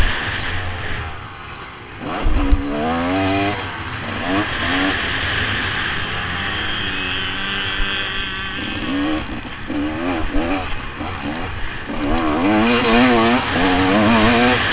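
Motocross dirt bike engine heard close from an onboard camera, revving up and dropping off again and again with the throttle and gear changes as it is ridden round the track. It eases off briefly just before two seconds in, then there is a thump and it revs hard again; it revs hardest near the end.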